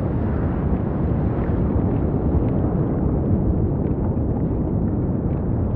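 Lava fountains of an erupting volcanic vent making a deep, steady rumble, with a few faint pops and crackles over it.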